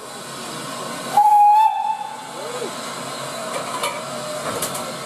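Steam locomotive at a standing stop, most likely SECR H class tank engine No. 263: a steady hiss of steam, with one short steady whistle blast lasting about half a second, starting about a second in.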